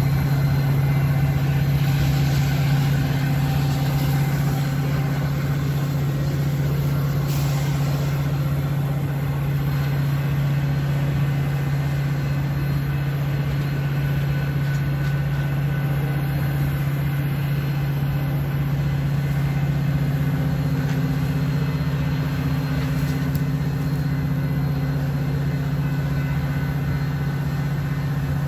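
Metra diesel passenger locomotive idling at a standstill, a steady low drone that holds even throughout.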